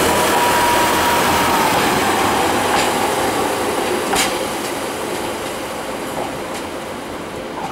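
A Northern Rail Pacer diesel multiple unit rolling away over the rails, a steady rumble with a thin whine that dips slightly in pitch, fading as it goes. Two sharp clicks from the wheels on the track come about three and four seconds in.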